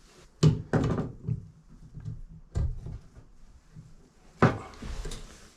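Hand tools and valve parts knocking and clattering while a Moen shower valve is taken apart for a cartridge change. There are several sharp knocks, the loudest about half a second in and near four and a half seconds, with scraping and rustling between.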